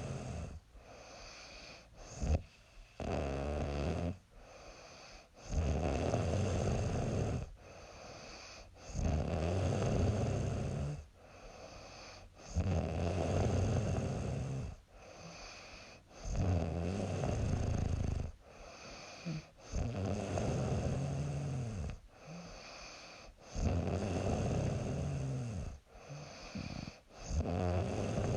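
A young woman snoring in her sleep. Loud snores last about two seconds each and come roughly every three and a half seconds, with quieter breathing between them.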